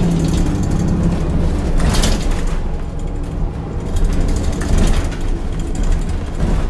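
Heuliez GX 337 city bus with ZF automatic gearbox heard from on board: the engine and drivetrain run steadily under the rattling and clicking of the interior fittings. A brief hiss comes about two seconds in.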